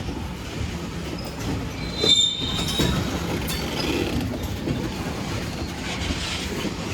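Cars of a Union Pacific manifest freight train rolling past with a steady rumble of steel wheels on rail, while the train moves through a switch onto another track. A brief high wheel squeal comes about two seconds in.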